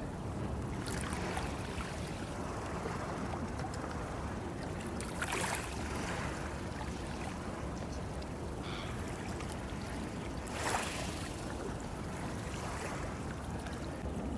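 Lakeside ambience: a steady low rumble of wind and water, with a few brief washes of small waves splashing. The clearest splashes come about five and eleven seconds in.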